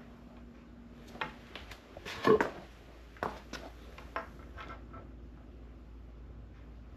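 A handful of short knocks and clatters over the first few seconds, the loudest about two seconds in, then only a low steady hum.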